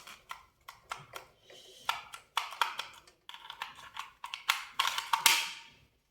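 Irregular clicks, taps and knocks of a fire alarm detector head and its plastic mounting base being handled and fitted, with a few short scrapes among them.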